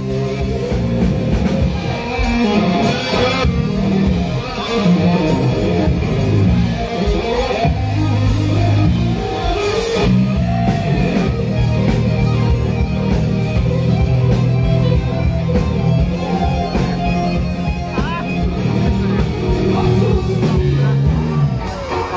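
Live rock band playing loud and steady, electric guitars to the fore over bass and drum kit.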